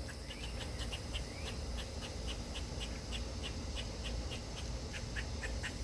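Insect chirping in an even rhythm, about three to four short, high chirps a second, over a steady low rumble.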